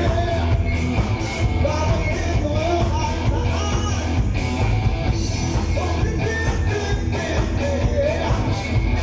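Rock song played by a band: a singer over a steady drum beat and a heavy bass line.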